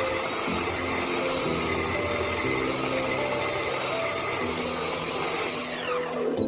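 A power tool running under load with a harsh, steady cutting noise. A tone falls in pitch near the end.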